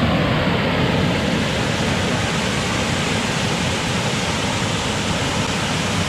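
Waterfall and white-water rapids rushing steadily and loudly. The river is running high and fast after days of heavy rain.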